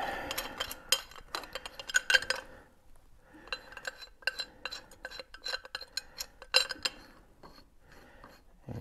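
Rapid metal clinks and taps of a pipe wrench's steel jaws being worked onto the lock nut of an antique car's rear wheel hub, with some strikes ringing briefly. The clinks come in two runs with a short pause about three seconds in, and thin out near the end.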